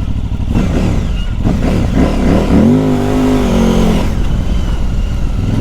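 KTM 950 Adventure S's LC8 V-twin engine revving under the throttle. Its pitch swings up and down from about a second and a half in, holds higher until about four seconds, then falls back to a lower steady run.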